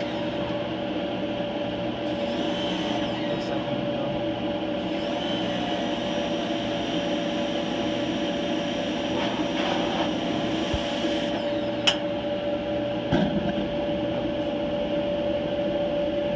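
Kenmore/Whirlpool gas dryer running on test: a steady hum of the drum motor and blower with a constant tone over it, as the gas burner burns. Two sharp clicks come about three-quarters of the way through.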